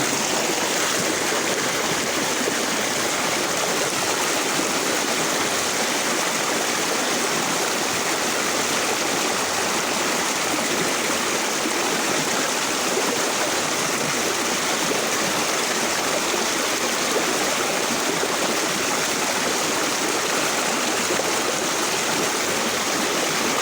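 River water flowing, a steady even rushing noise with no change throughout.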